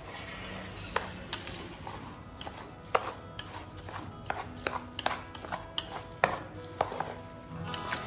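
Wooden chopsticks stirring a moist noodle and pork filling in a metal pot, knocking against the pot's side in irregular sharp clicks.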